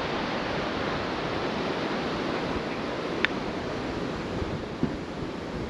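Steady wash of ocean surf breaking on the beach, mixed with wind, and a single short click about three seconds in.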